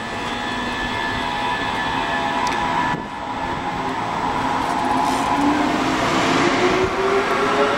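Munich S-Bahn class 423 electric train pulling out of the platform: the electric whine of its traction drive rises in pitch and gets louder as the train gathers speed, over the rumble of its wheels on the rails.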